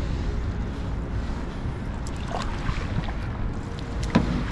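Canoe being paddled, with a few sharp knocks, the loudest near the end, over a steady low wind rumble on the microphone.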